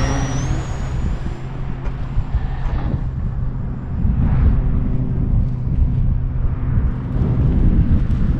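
Wind buffeting the microphone, with the thin high whine of an electric RC stunt plane's motor and propeller in flight that fades out about five seconds in.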